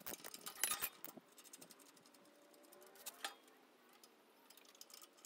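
Faint metallic clicks and clinks of a socket ratchet working a bolt loose on the tractor's rear bracket. There is a cluster of clicks in the first second, then one sharper click about three seconds in.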